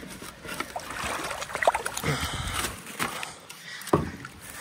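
River water sloshing and trickling as a fence is pulled apart in the stream, with a few short knocks, the sharpest near the end.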